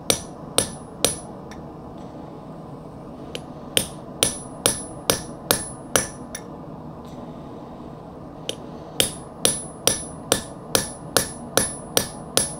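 Hand hammer striking hot steel on an anvil: three runs of blows at roughly two a second, with pauses between, each blow giving a short bright ring. The smith is drawing down the jaw of a pair of blacksmith tongs.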